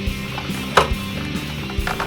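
Background music, with a sharp click about a second in and a lighter click near the end from parts being handled while the washer's lid latch switch wiring is refitted.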